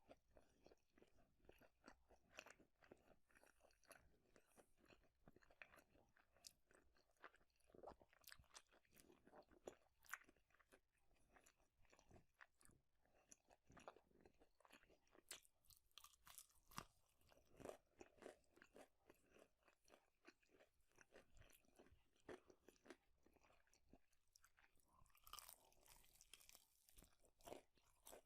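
Close-miked chewing and crunching of fast food, quiet and irregular, with many small crackles and bites. A short hissing, rustle-like stretch comes near the end.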